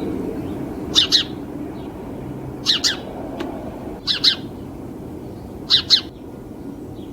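House sparrow chirping: four short double chirps, each two quick notes, spaced about a second and a half apart, over a steady low background noise.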